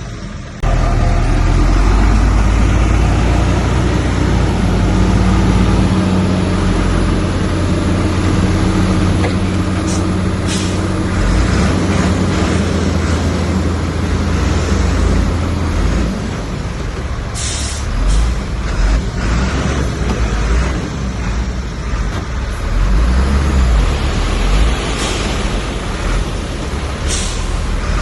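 Heavy diesel earthmoving machinery running hard, a deep steady engine drone that shifts in pitch partway through. Several short sharp metallic clanks and knocks come through over it.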